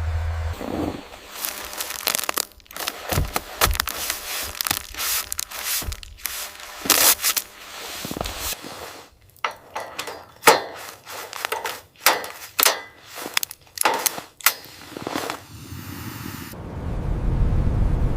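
Irregular scrapes, rubs and knocks of things being handled, with short quiet gaps between them. A steady low rumble cuts out just after the start and comes back near the end.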